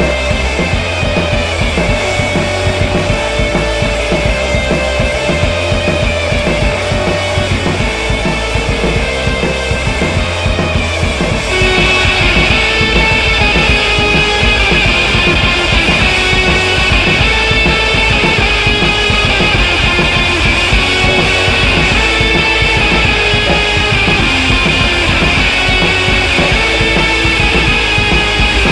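Background rock music with drums and bass, getting fuller and louder about eleven seconds in.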